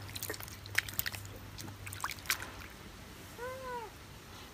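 Wet squelching and sloshing as hands squeeze and rub peeled mangoes in a bowl of their own juice, working the flesh off the seeds. About three and a half seconds in, one short call that rises and falls in pitch.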